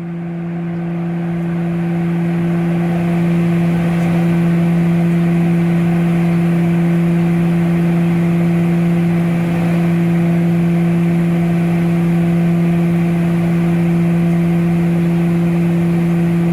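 Airliner engines running steadily, heard inside the passenger cabin in flight: a constant drone with a strong low hum and a second, higher tone over a rushing noise. It fades up over the first few seconds, then holds steady.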